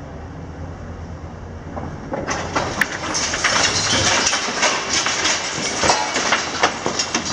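Low hum of a demolition excavator's diesel engine. About two seconds in, a dense, irregular clatter and crunching of breaking concrete and masonry begins and keeps going as the building is torn down.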